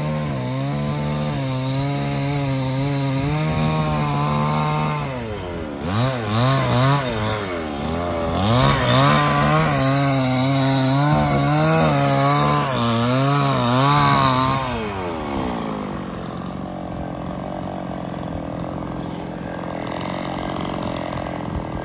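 Two-stroke chainsaw running hard while cutting wood, its engine pitch wavering and dipping twice under load. Near the end it drops to a lower, rougher sound.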